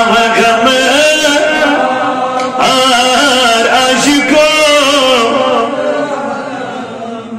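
A man's voice chanting melodically into a microphone, holding long, wavering notes in a slow religious recitation. It eases off a little near the end.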